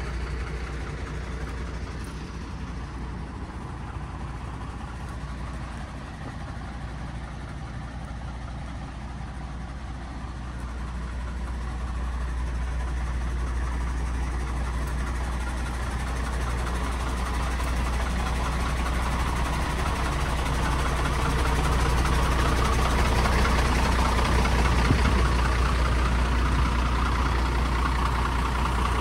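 MAN TGM 18.250 lorry's six-cylinder diesel engine idling steadily, with a deep low hum, growing louder over the second half as the front of the truck is reached.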